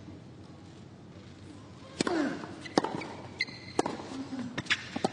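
Tennis rally: sharp racket strikes on the ball about once a second, starting about two seconds in, the first with a player's grunt, over a quiet stadium crowd.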